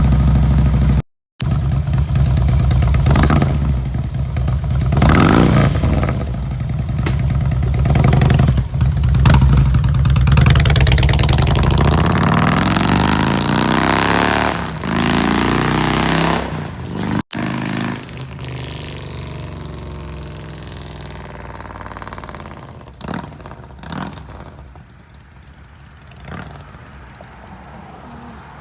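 Harley-Davidson Street Glide V-twin through SVT Jackhammer exhausts, running loud with a few throttle blips, then pulling away and accelerating with rising pitch about halfway through. It fades steadily into the distance over the second half, with a few faint revs near the end.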